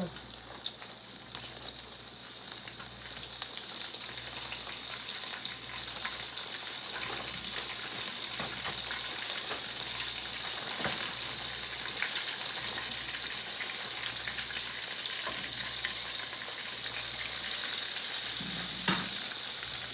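Chicken deep-frying in hot oil: a steady sizzle that grows slightly louder, with faint crinkling of a plastic bag of flour being handled and one sharp click near the end.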